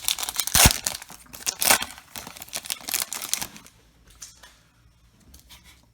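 Crinkling and tearing of a baseball card pack's wrapper as it is opened by hand, with a sharp knock just over half a second in. The rustling dies down to faint handling after about three and a half seconds.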